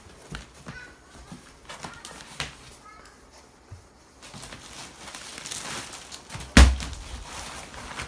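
Handling of packed pillows: scattered light knocks and clicks, a stretch of rustling packaging, then one loud, deep thump near the end as a package is set down.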